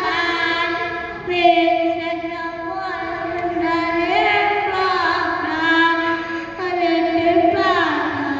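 A child singing a rhyme in a high voice, holding long notes and gliding between pitches.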